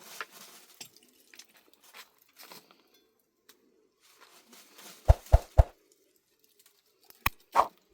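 Faint rustling and crackling handling noises, then three heavy thumps in quick succession about five seconds in and two sharp clicks near the end.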